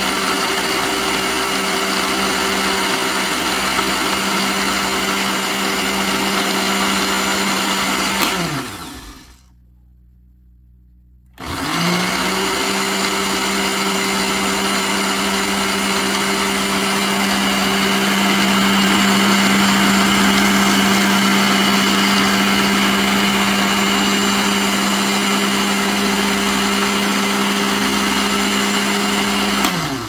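Countertop blender running steadily while blending an herbal mixture into a liquid syrup. About eight seconds in the motor winds down and stops. After about two seconds it starts again and runs on until it winds down at the very end.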